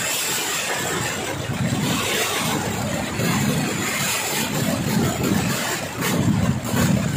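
Fireworks going off in a rapid, continuous barrage, the bangs and crackle running together into a dense, steady rumble that swells a few times.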